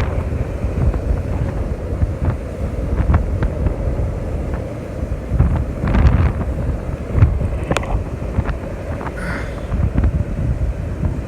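Wind buffeting the microphone in gusts, over the wash of surf breaking on the beach, with a few light clicks.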